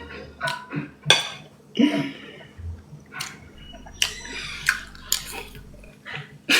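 Eating with utensils: scattered sharp clicks and clinks of cutlery against dishes.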